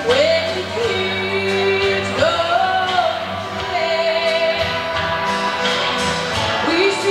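A song sung over instrumental backing, the voice holding long notes and sliding up into each new one.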